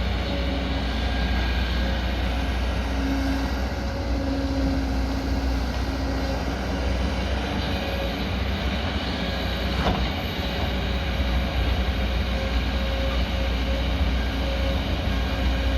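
Excavator's diesel engine running steadily with a heavy low rumble and a steady whine above it. A brief sharp knock about ten seconds in.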